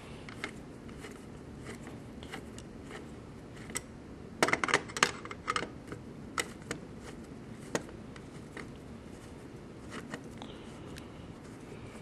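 Screwdriver working the terminal screws of a 240 V dryer receptacle: scattered light metal clicks and scrapes, with a quick cluster of clicks about four and a half to five and a half seconds in, over a faint steady background hum.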